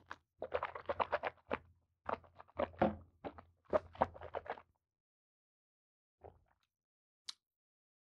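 A person sipping water from a glass and swallowing: a run of short wet mouth sounds over about four seconds, then quiet apart from a faint click or two near the end.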